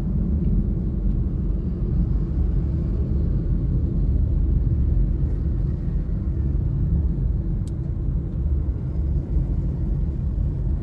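Steady low rumble of road and engine noise from a vehicle moving through city traffic.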